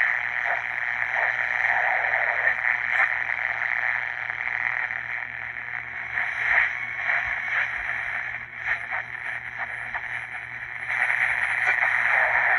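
A Zenith Royal 20 transistor radio playing a station through its small speaker. The sound is thin and narrow, with no deep bass, and grows louder again near the end.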